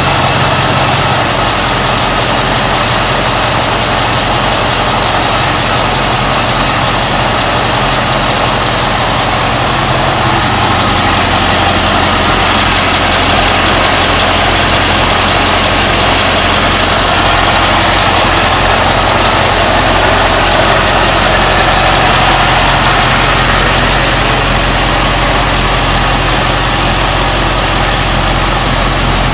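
Supercharged LS2 V8 fitted with a Magnacharger supercharger, idling steadily and smoothly.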